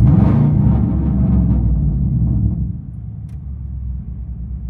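2004 Ford F-150's 5.4 L Triton V8, straight-piped through true dual exhausts with high-flow cats, heard from inside the cab: a rev blip with a rising note at the start, held for about two seconds, then dropping back to idle.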